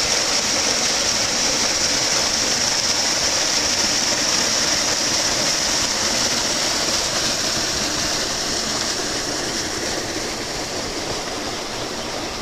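Water of an intermittent Mediterranean stream pouring over a small rock waterfall and splashing into a pool below, with a steady rushing noise. It eases slightly in the last few seconds.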